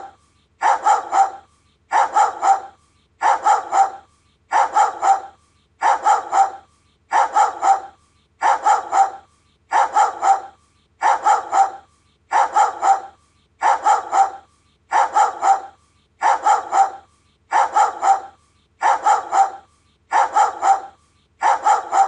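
Doberman barking in short bursts of two or three quick barks, a burst a little more often than once a second, repeating at an even rhythm.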